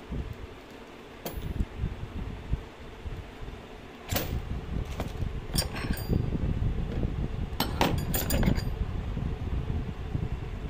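Steel drill bits and a chisel clinking against each other and the hard plastic carry case as they are handled and fitted into it, with several sharp metallic clinks and a quick cluster of them a little past the middle, over low handling bumps and rustling.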